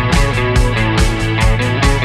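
Background music: rock-style guitar with a steady drum beat.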